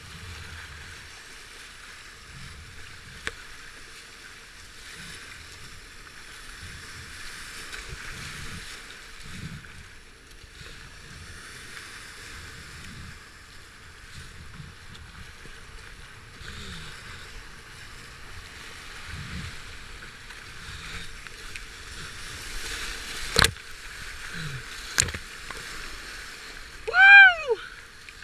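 Flooded river rapids rushing and splashing around a kayak as it is paddled through whitewater, with irregular low thumps of water and paddle strokes. Two sharp knocks come about three-quarters of the way through, and near the end a brief high-pitched call rises and falls.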